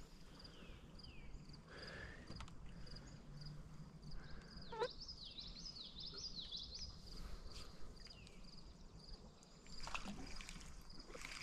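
Faint outdoor ambience with birdsong: a string of evenly repeated short high notes, a few quick falling chirps, and a burst of warbling song about five seconds in, over a low steady background rumble.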